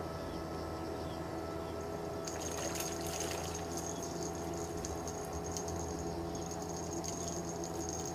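A hooked fish splashing as it is scooped up in a landing net and lifted out of the river, with water pouring from the mesh. The splashing is loudest for about a second, starting a little over two seconds in.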